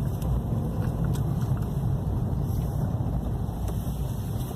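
Steady low rumble of a Ford New Fiesta running, heard from inside the cabin, with a few faint ticks about a second in.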